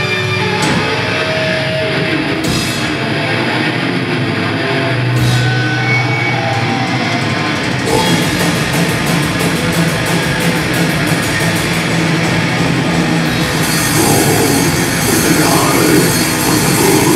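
Death metal band playing live: distorted electric guitars riffing, with the drums breaking into a fast, steady beat about halfway through and vocals coming in near the end.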